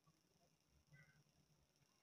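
Near silence: faint room tone with a steady low hiss, and a brief faint high chirp about a second in.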